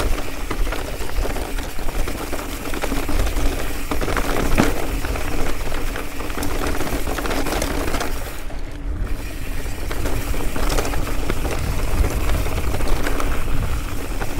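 Mountain bike descending a rocky trail: wind rushing over the camera microphone, with the bike rattling and clattering over rocks in a rapid run of knocks.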